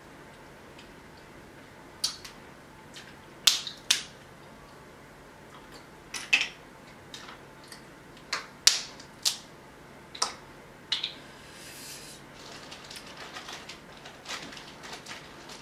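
Crab leg shells cracking and snapping by hand: about ten sharp separate cracks, then softer crackling and handling noises for the last few seconds.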